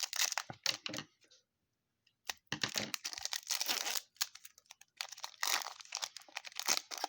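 Trading-card pack wrapper being torn open and crinkled in three bursts, with short pauses between.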